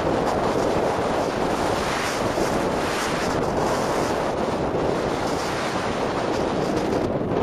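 Wind rushing over the microphone of a skier's camera at speed, with the steady hiss and scrape of skis running and turning on packed snow, the hiss swelling and easing every second or so.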